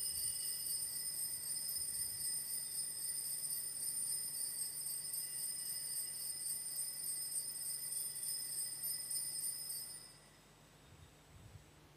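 Altar bells shaken in a steady, continuous jingle, marking the elevation of the chalice at the consecration of the Mass; the ringing stops abruptly about ten seconds in.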